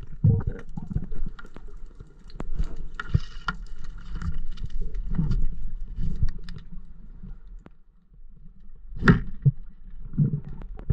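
Underwater sound through an action camera's waterproof housing during a breath-hold dive: a low, muffled rumble of water and the diver's movement, with scattered clicks and knocks and one sharper knock about nine seconds in.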